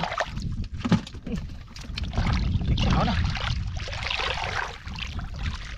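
Hands and bare feet sloshing and splashing through shallow muddy water while digging in the mud, with irregular wet slaps, heaviest in the middle.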